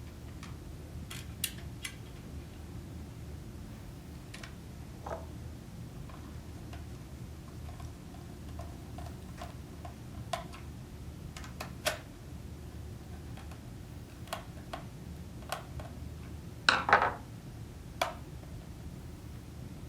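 Scattered light clicks and taps of a screwdriver and small screws against the plastic housing of an X-ACTO School Pro electric pencil sharpener as the screws beside the cutter assembly are put back in, with a louder clatter of several clicks near the end, over a steady low hum.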